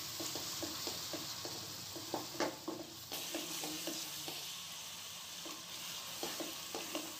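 A spatula stirring and scraping potato chunks through thick masala in a metal pot, in repeated short strokes over a steady sizzle of the frying oil. The potatoes are being fried in the masala and oil after a splash of water.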